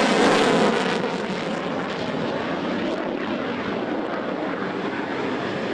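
Single-engine F-16 Fighting Falcon jet climbing away just after an afterburner takeoff. The engine noise is loudest in the first second as the jet passes, then settles into a steady, slightly quieter rush as it pulls away.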